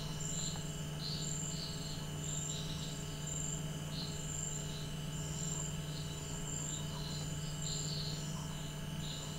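Faint background of chirping insects, a broken high trill with irregular softer chirps, over a steady low hum.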